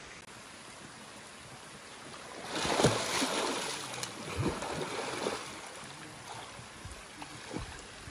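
A person plunges into a lake: a steady hiss, then a loud splash about two and a half seconds in, followed by irregular splashing and sloshing as he swims.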